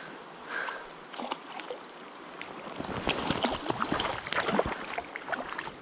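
Creek water running, with splashing and clicking getting louder about three seconds in as a hooked trout is played in and brought to the net.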